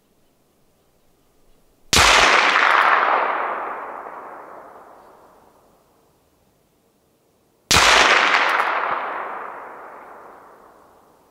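Two rifle shots about six seconds apart, each a sharp crack followed by a long rolling echo that fades over about four seconds.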